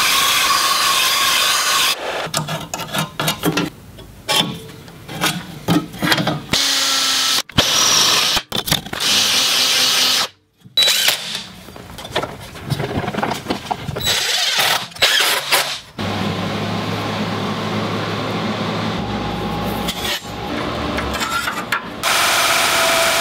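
A bench disc sander grinding the end of a steel strip, then a cordless drill driving screws in short, uneven bursts with clanks of metal. Later comes a steady machine hum lasting several seconds.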